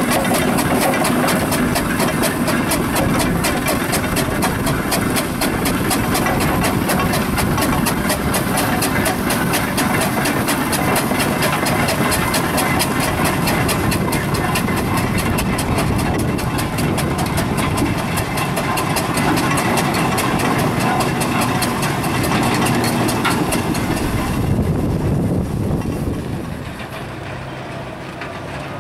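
Steam road vehicle working up a hill, its fast even beat loud and steady, then dropping away to a quieter rumble about 25 seconds in.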